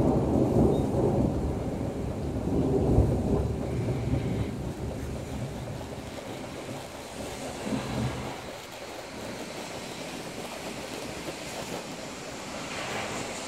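Thunder rolling, loudest in the first few seconds and dying away, with a smaller rumble about eight seconds in. Steady rain hiss under it and after it.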